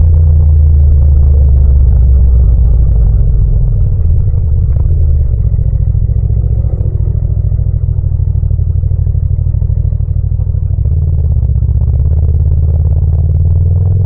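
Yamaha MT-07's 689 cc parallel-twin engine running at low speed, its pitch dropping about five seconds in as the throttle closes and the bike slows, then turning over at low revs and beginning to pick up again near the end.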